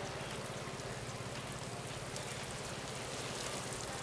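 Water spraying from a watering can's rose onto flowers and leaves: a steady, even shower of hissing and pattering droplets.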